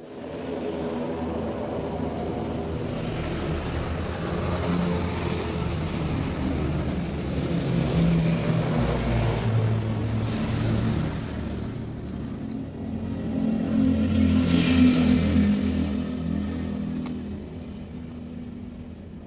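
A motor running with its pitch shifting, swelling louder twice and easing off near the end.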